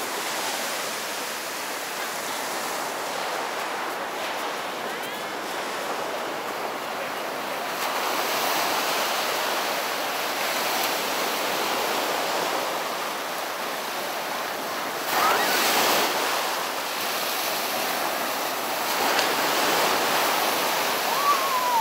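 Ocean surf washing up on a sandy beach: a steady rush of breaking and receding waves, swelling a little louder partway through.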